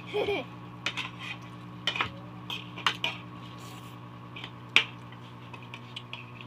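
Metal spoons and forks clinking and scraping on ceramic plates during a meal: irregular sharp clinks, the loudest one nearly five seconds in.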